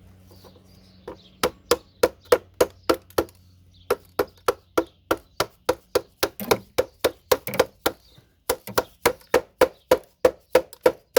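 A hammer striking the RAM slots on a computer motherboard in quick repeated blows, about three a second, with two short pauses, knocking the plastic slots and their pins off the board.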